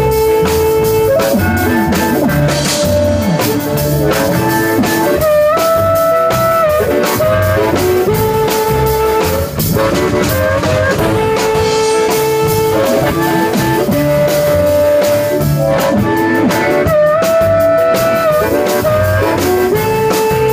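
Live band playing an instrumental break with no singing: a lead melody of long held notes over plucked upright bass, electric guitar and drum kit.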